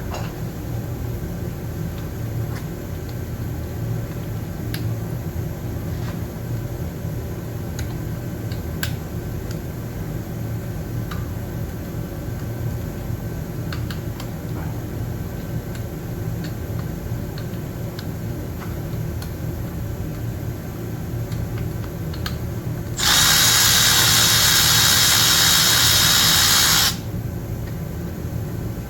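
Faint clicks of hand work over a low steady hum, then about 23 seconds in a power tool runs loudly for about four seconds and stops, likely a driver unfastening a fuel-rail bolt.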